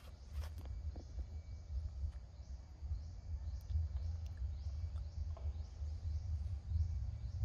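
Outdoor ambience: a steady low rumble with an insect chirping in the background at an even rhythm, roughly every half-second. A few soft clicks sound near the start.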